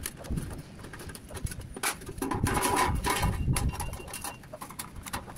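Aviation snips (tin snips), which the roofer calls blunt, cutting a steel flashing tray: a run of irregular sharp clicks and crunches as the jaws bite through the sheet, with the loose metal rattling.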